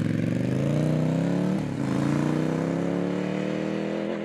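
Motorcycle engine accelerating away, its pitch climbing, dropping at an upshift about a second and a half in, then climbing again through the next gear.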